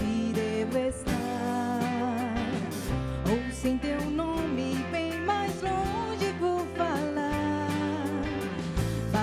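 A live band playing a song with a woman singing lead into a microphone, over acoustic guitar, electric guitar, bass, keyboard and a steady drum beat.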